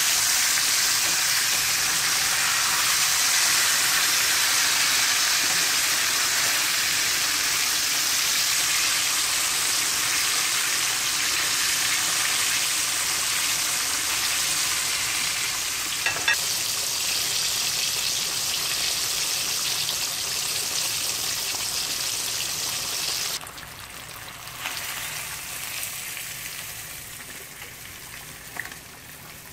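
Cornmeal-coated snapper frying in hot oil in a pan: a steady, loud sizzle, with a single light click about sixteen seconds in. Near the end the sizzle drops abruptly to a quieter level.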